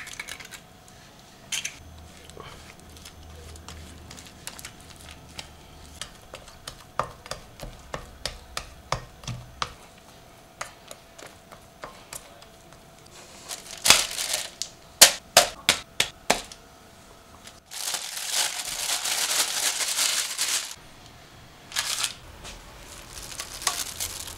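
Kitchen handling sounds in a glass mixing bowl. An egg cracks on the rim at the start. A spatula then stirs and slaps sticky dough against the bowl, with a run of light ticks followed by louder knocks. Near the end comes about three seconds of steady crinkling noise.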